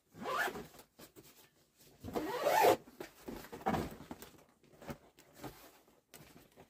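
Zipper on a Titleist golf carry bag being pulled along its track in several strokes. The longest and loudest stroke comes about two seconds in, with weaker handling noises of the bag after it.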